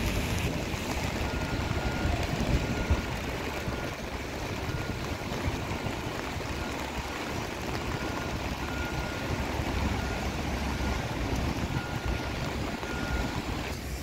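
Wind buffeting the microphone over steady rain hiss on wet pavement, with a low rumble of traffic. A faint, short, high beep repeats irregularly, about once a second.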